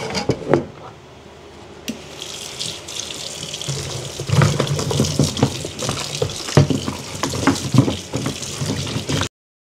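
Kitchen tap running into a plastic basin of cut taro slices in a steel sink, with splashing and the knock of the slices as they are rubbed clean by hand. A few knocks as the basin is set down come first, the water comes on about two seconds in, and everything stops abruptly near the end.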